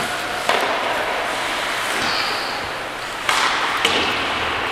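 Hockey skate blades carving and scraping on the ice during play, with sharper scrapes starting about half a second in and again just past three seconds, and a short knock a little later.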